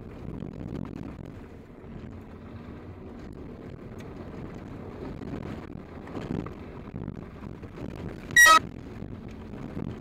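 Toyota Land Cruiser driving a dirt road, heard from inside the cabin: a steady rumble of engine and tyres with wind noise, sped up to double speed. About eight seconds in, a brief, loud, high-pitched chirp cuts through.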